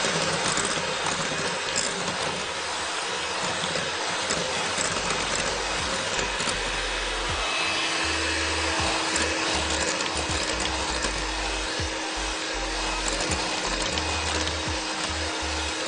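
Electric hand mixer running steadily, its beaters whipping powdered whipped-cream mix and iced water in a glass bowl.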